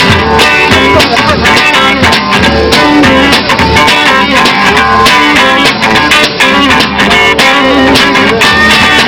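Band music: an instrumental guitar passage over a steady bass and drum beat.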